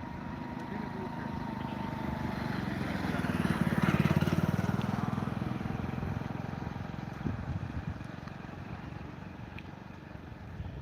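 Motor vehicle engine running, swelling to a peak about four seconds in and then fading, as a vehicle passing close by.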